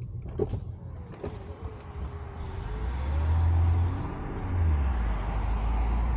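Inside the cabin of a BMW 328i with a Remus aftermarket exhaust, the inline-six's exhaust drone is heard. It is low and deep, and grows much louder about three seconds in as the car picks up speed, dips briefly around four seconds, then comes back strong. Two short clicks sound in the first second or so.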